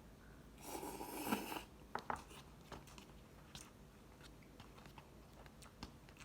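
A person eating instant ramen noodles close to the microphone: a short noisy slurp about a second in, then soft chewing and scattered mouth clicks.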